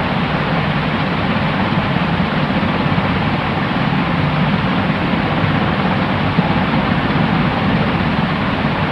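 Steady white noise for sleep: an even, unchanging hiss with no rhythm or breaks, fuller at the low end.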